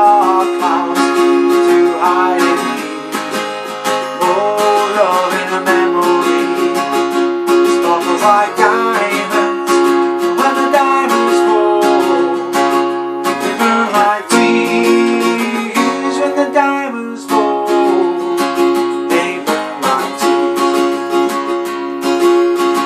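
Acoustic guitar with a capo, strummed steadily in a rhythmic chord pattern: the instrumental break between verses of the song.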